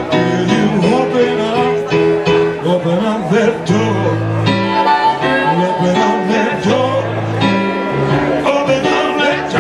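Live blues band playing an instrumental passage between sung lines, led by piano, with sustained and bending melody notes over a steady bass.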